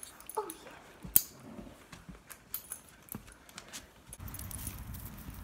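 A dog's harness and leash jingling and clicking as they are put on and clipped, with one sharp click a little over a second in. About four seconds in, a low steady rumble takes over.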